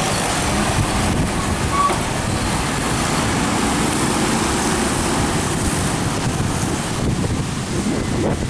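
Steady road traffic noise from heavy trucks passing on the highway: engine rumble and tyre noise.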